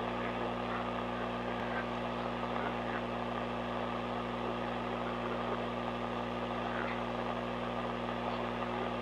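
Steady low droning hum under an even rushing noise, an ambient drone soundtrack that holds at one level without rhythm or change.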